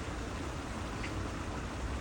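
A bird gives a single short, faint high chirp about a second in, over a steady rushing background noise.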